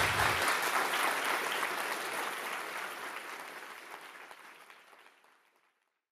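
Audience applauding, steadily fading out over about five seconds.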